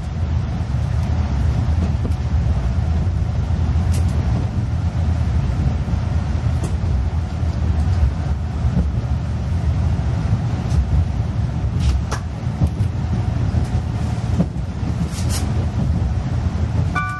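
JR West 183 series electric express train heard from inside the passenger cabin while under way: a steady low running rumble with a few sharp clicks.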